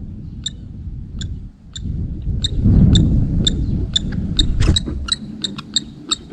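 Common kestrels calling during a courtship food pass: a series of short, sharp, high calls, spaced out at first and coming about three a second in the second half, over a low rumble.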